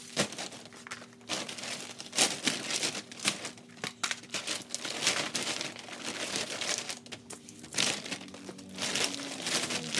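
Plastic packaging and a woven plastic shopping bag rustling and crinkling irregularly as items are stuffed back into the bag.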